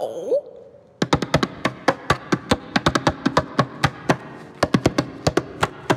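Sharp, uneven taps or knocks, several a second. They start about a second in and pause briefly about two-thirds of the way through.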